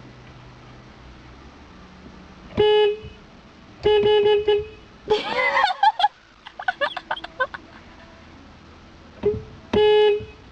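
Car horn honking in short blasts: one about a third of the way in, a quick run of three or four toots around the middle, then two more near the end. Between them come a loud wavering call and a run of short choppy sounds.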